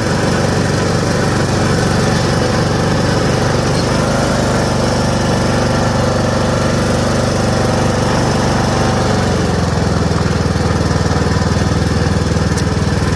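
Riding lawn mower engine running steadily as the mower is driven along, not mowing. Its note shifts about two-thirds of the way through.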